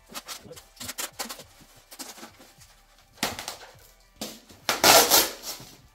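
Unpacking by hand: a box cutter scraping and clicking through packing tape on a polystyrene box, then the lid coming off and plastic packing being pulled out, with rustling that is loudest about five seconds in.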